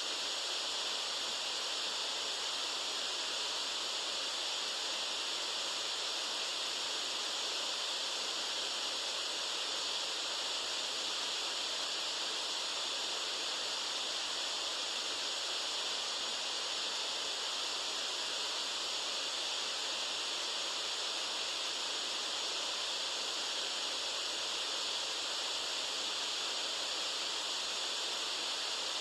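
White noise: a steady, unchanging hiss, brightest in the high range with little low rumble.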